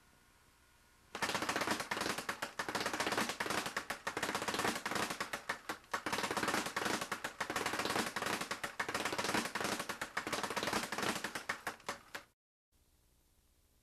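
Leather speed bag punched in a fast, continuous combination, rattling against its wooden rebound platform in a rapid, even stream of strikes. The strikes start about a second in and stop abruptly near the end.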